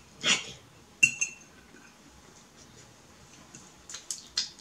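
A metal fork clinks once against a ceramic plate, a sharp click with a short ring about a second in, followed by small clicks near the end.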